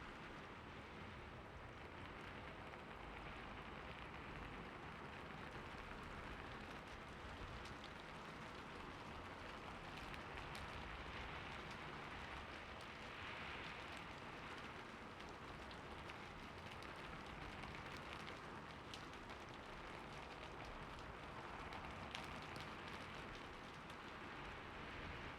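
Heavy rain falling steadily: a dense, even hiss with faint scattered drop ticks.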